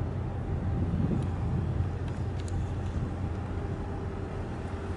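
Steady low rumble of distant engines under even outdoor background noise, with a few faint ticks about two seconds in.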